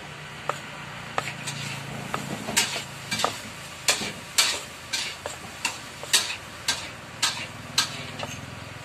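Heavy meat cleaver chopping raw meat on a thick round wooden chopping block, a regular chop about twice a second, the strokes landing harder after the first couple of seconds.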